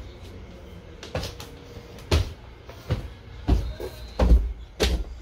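Footsteps going down a narrow wooden staircase: about six dull thumps, a little under a second apart, starting about a second in.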